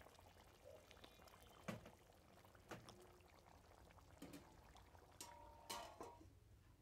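Near silence, with a handful of faint, scattered pops from a pot of fish curry simmering in its gravy.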